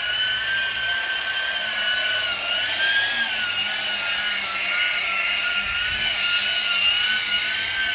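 Electric car-polishing machine running steadily on lacquered paint, a high whine that wavers slightly in pitch as it is worked across the panel.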